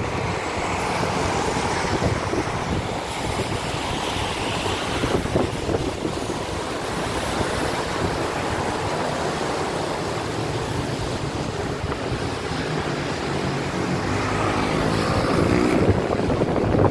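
Steady rush of a wet city street in the rain: traffic and rain hiss, with wind buffeting the phone's microphone. It grows a little louder near the end.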